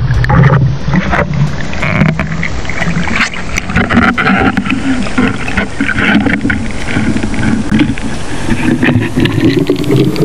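Underwater noise heard through a camera housing: a steady rush of water with frequent sharp clicks and knocks, and a low hum that rises in pitch toward the end.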